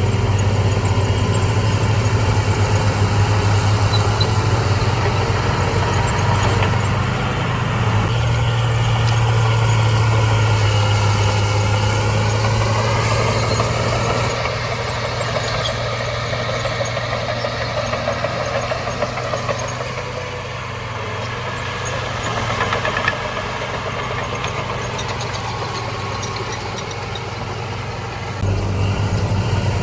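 Diesel engine of heavy earthmoving machinery running with a steady low hum. Its note rises in the middle, it is quieter for much of the second half, and it grows loud again near the end.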